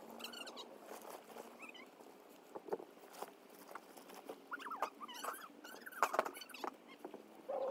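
Sped-up time-lapse audio of a trampoline being taken apart: quick clicks and clatters of the steel frame, with short, high chirpy squeaks.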